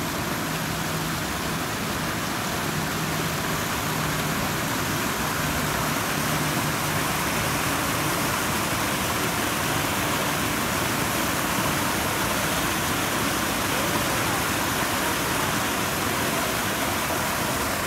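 Water pouring over an artificial rock waterfall and splashing into a pool: a steady rushing, a little louder after the first few seconds.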